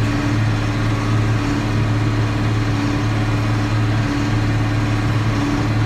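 John Deere 4960 tractor's six-cylinder turbo diesel running at a steady, unchanging drone while pulling a New Holland D800 big square baler in the field.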